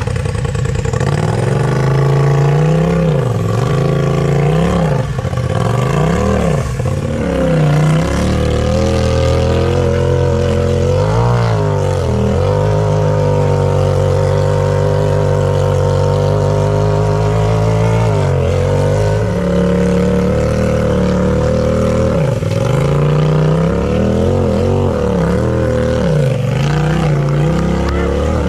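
Tube-chassis Polaris RZR side-by-side engine revving hard in repeated bursts as it claws up a wet rock ledge, pitch rising and falling with each throttle stab. About twelve seconds in it holds a long steady high rev for several seconds, then goes back to short blips of throttle.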